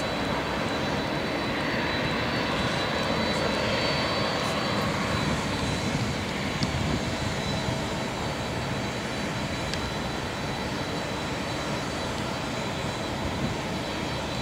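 Jet airliner engines running, a steady rush with a thin high whine through it.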